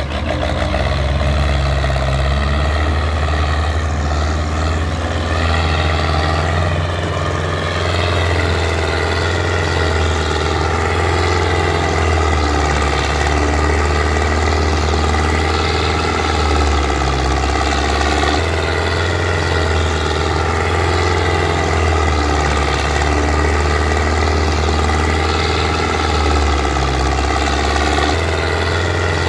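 Belarus tractor's diesel engine running hard and steady under a heavy load, hauling an overloaded sugarcane trailer and smoking black.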